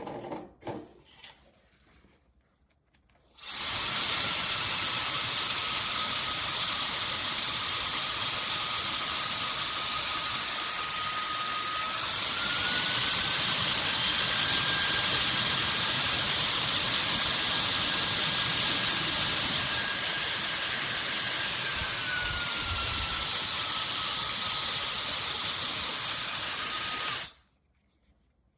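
A SUPGALIY mini hair dryer with a high-speed motor blowing: a steady rush of air with a thin high motor whine. The whine rises in pitch about twelve seconds in and drops back about ten seconds later. A few faint clicks come before it starts, and it cuts off suddenly near the end.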